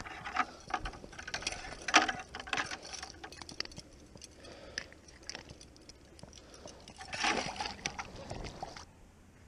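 Handling noise from unhooking a caught perch over a bucket of water: a run of sharp clicks and rustles against the chest-worn camera, with one loud knock about two seconds in and a louder burst of rustling about seven seconds in.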